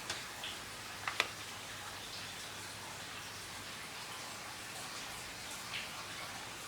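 Faint steady room hiss with a few light clicks; the loudest two come close together about a second in.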